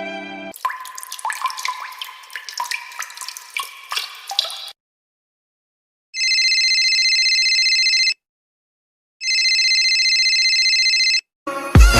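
A string of separate sound-effect clips. First comes a run of plinking water drops, each with a short ringing note. After a short gap, a high trilling electronic ring sounds twice, each about two seconds long. Electronic music with heavy bass cuts in near the end.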